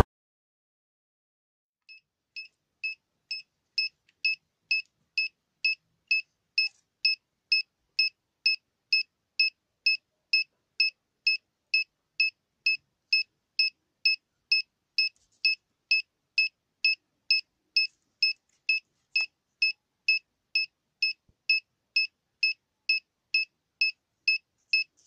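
Electronic buzzer from a simple transistor alarm circuit beeping: short, high, identical beeps about two a second, starting about two seconds in, growing louder over the first couple of seconds, then steady.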